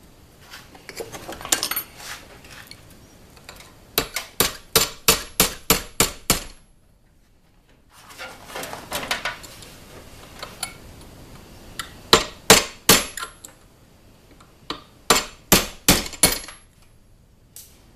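Hand file cutting steel on a 1911 pistol slide clamped in a vise, fitting the sight. Runs of quick, sharp strokes, about four a second, come three times, with softer scraping passes between them.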